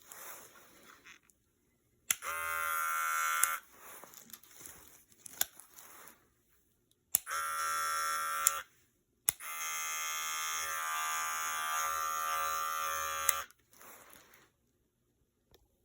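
Electric hair clippers switched on and buzzing steadily three times: about a second and a half, then about a second, then about four seconds. Each run starts and stops with the click of the switch.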